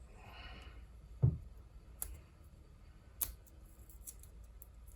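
Faint handling noise of a cable's outer sheath being peeled off and cleared away: a short rustle, then a soft knock and a few light, sharp clicks.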